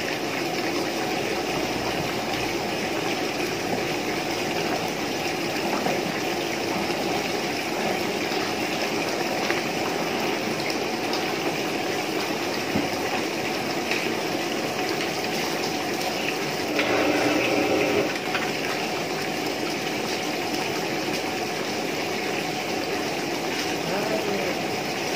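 Steady rushing water noise, with a louder stretch about 17 seconds in that lasts about a second.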